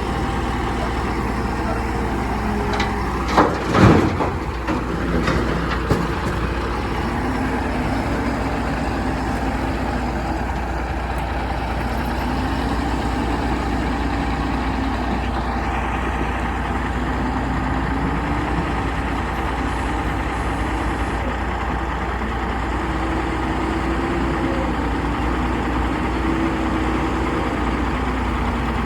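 Diesel engine of a JCB 3CX backhoe loader running steadily, its revs rising and falling several times as it works. About three to six seconds in, a few loud bangs and rattles, fitting quarry stone dropping into the dump truck's bed.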